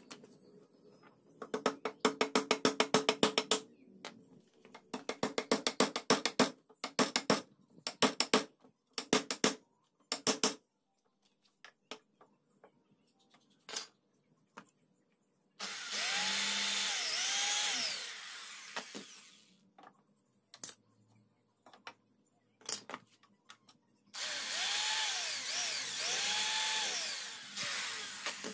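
Electric drill run in two bursts, its motor speeding up and slowing down several times in each as the trigger is worked. Before it come two runs of rapid tapping and a few single knocks.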